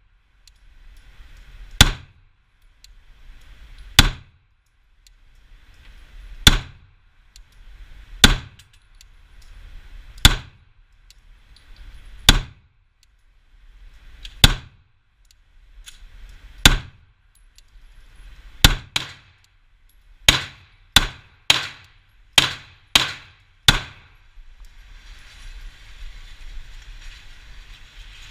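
Glock 17 9mm pistol firing sixteen shots: slow single shots about two seconds apart, then a quicker string of six about half a second apart. A steady rushing noise follows.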